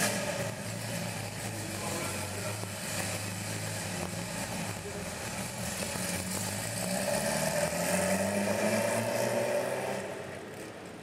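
Supercar engine running, its note rising and growing louder about two-thirds of the way through as the car accelerates, then fading near the end.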